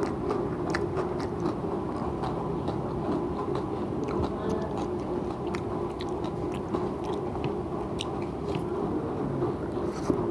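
A person chewing food close to the microphone, with many small sharp mouth clicks and smacks, over a steady low background hum.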